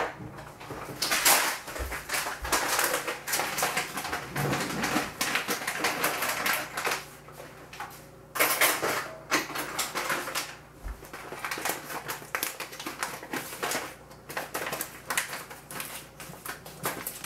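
Dry sticky rice being scooped and poured to measure it, the grains rattling and clicking in dense, rapid bursts, with a short lull about eight seconds in.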